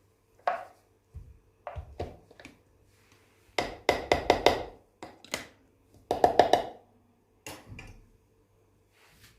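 A run of knocks and clatters from household objects being handled, with two bursts of quick repeated tapping, the louder one about halfway through.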